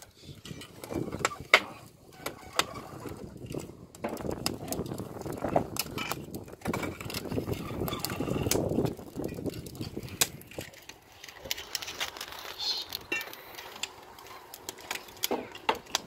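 Pieces of split firewood knocking and clicking against each other as they are fed by hand into a burning wood-fired brick oven: irregular sharp knocks throughout, busiest in the middle.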